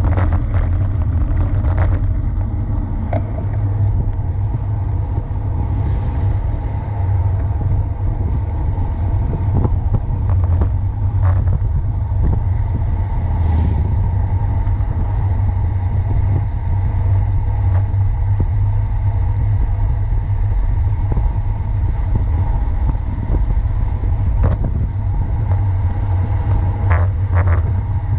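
Steady low rumble of wind buffeting a bicycle-mounted camera's microphone on a fast road descent, over tyre noise on asphalt, with a few short clicks and clatters from bumps in the road.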